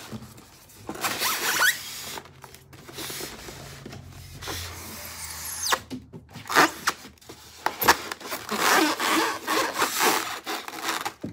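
Styrofoam packing blocks squeaking and rubbing against a cardboard box as the packed sewing machine is slid out, with cardboard scraping and a few sharp knocks.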